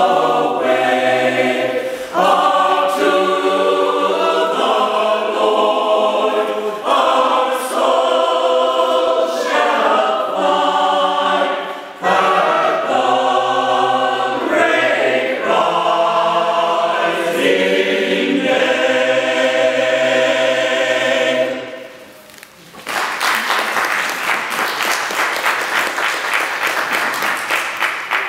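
Mixed choir of men and women singing a song in phrases of held chords, with short breaks between phrases. The song ends about three-quarters of the way in, and after a brief pause an audience applauds.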